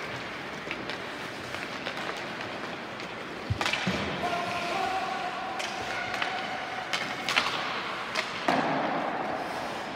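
Ice hockey play in an arena: skates scraping the ice under a steady hiss, with several sharp knocks of sticks, puck and boards. The loudest comes about seven seconds in. A held shout from a player or onlooker runs through the middle.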